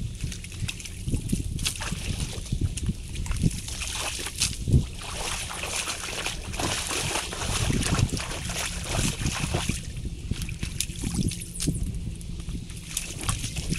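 Water sloshing and splashing, with scattered knocks and cracks of sticks and mud, as a beaver dam is pulled apart by hand and potato rake. The splashing is heavier through the middle.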